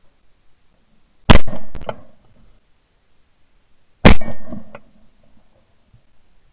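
Two shotgun shots at clay targets, about two and a half seconds apart, heard from a camera mounted on the gun. Each is a sharp, very loud crack followed by a short tail of fainter cracks.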